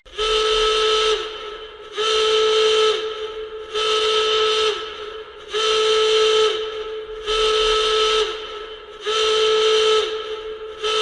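Emergency alert alarm: a steady mid-pitched tone about a second long, repeating roughly every second and three quarters, each tone dipping slightly in pitch as it ends.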